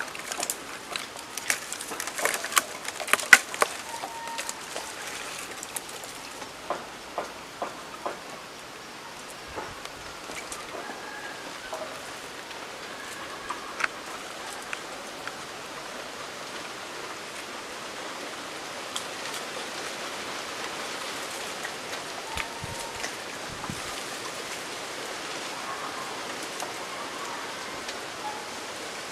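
Tamarind tree branches and leaves rustling as a man climbs it, with sharp clicks and cracks of twigs and bark clustered in the first six seconds. After that only a steady, leafy hiss remains, with an occasional click.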